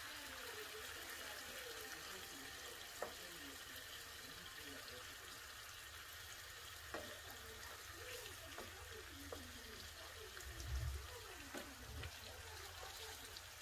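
Potato masala bubbling faintly as it simmers in hot water in a nonstick pan, with a wooden spoon stirring and a few light taps against the pan.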